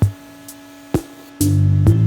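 Background music with a steady drum beat, about one hit a second, and a held bass note coming in near the end.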